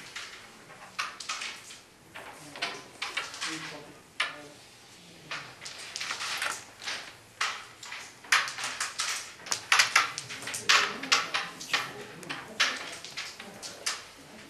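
Carrom striker and wooden carrom men clicking and clacking against each other and the board's frame as shots are played. The clacks are sharp and come thickest in the second half.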